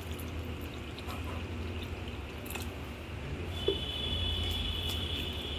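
Water poured from a plastic jug into a glass bowl of semolina and curd mix, a soft trickle and splash over a steady low hum. About three and a half seconds in, a faint thin high whine starts and holds steady.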